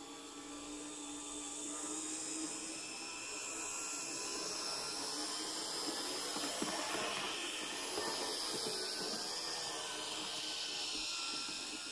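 Z-gauge model locomotive running on its track: a thin electric motor whine with a hiss, growing louder toward the middle as the train comes closer, with a few faint ticks of wheels on the rails.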